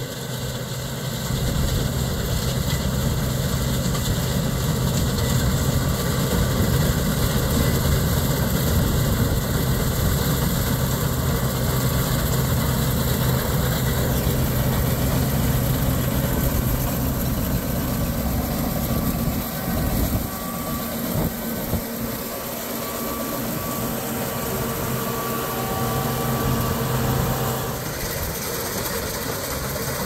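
Axial-Flow rotary combine harvesting soybeans: the diesel engine and threshing machinery run at a steady working drone. A thin whine joins in about halfway through.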